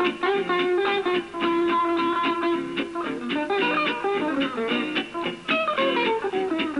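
Gypsy jazz (jazz manouche) guitar playing a line of rapid plucked notes, with a fast descending run near the end.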